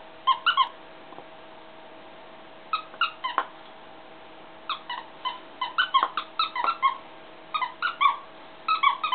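A plush bone-shaped squeaky toy squeaking as a dog chews it: quick runs of short squeaks, a few at a time with pauses between, the longest run in the middle.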